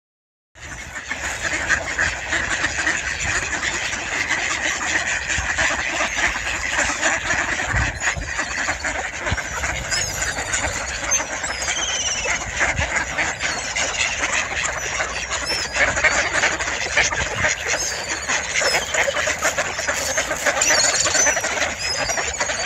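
A large flock of mallards quacking continuously, many calls overlapping into a steady din, as the ducks crowd in begging to be fed.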